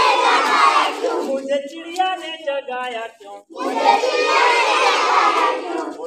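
A group of children shouting together in unison, twice, with a short chanted or sung line between the two shouts.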